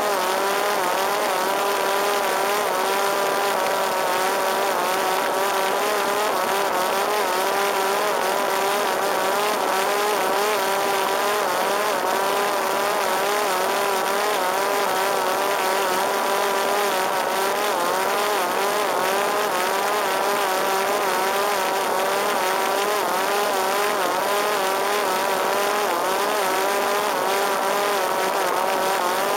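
Parrot Disco fixed-wing drone's electric motor and rear pusher propeller running steadily in flight: a whine whose pitch wavers slightly, over a steady hiss of rushing air.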